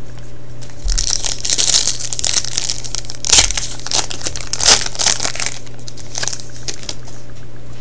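Foil wrapper of a 2011-12 Rookie Anthology hockey card pack being crinkled and torn open by hand, with two sharp rips about three and a half and nearly five seconds in. Fainter rustling follows as the cards are slid out.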